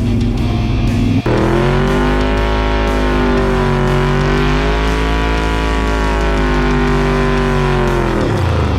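1974 Corvette's V8 engine running under way, its note swelling and easing gently for several seconds, then falling away near the end as the revs drop. Guitar music plays along with it.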